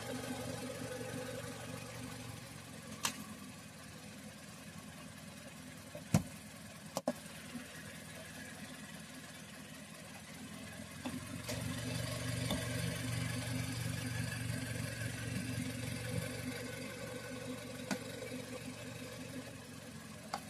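A few sharp clicks and taps of screws and plastic push pins being fitted to a car's engine undercover, over a steady low hum.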